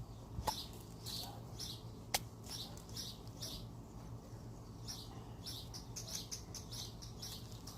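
Homemade slime being squeezed and kneaded by hand: a continuous run of small wet squelches, about three a second, with a couple of sharper clicks, over a low steady hum.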